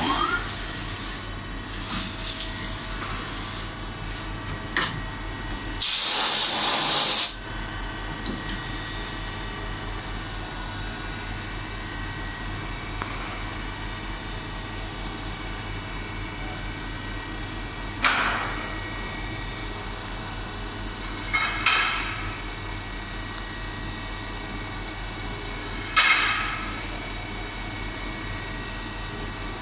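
CNC milling machine running, circular-interpolating a hole wider with its cutter. A loud hiss lasts about a second and a half early on, and the cutting tool gives three short squeals in the second half.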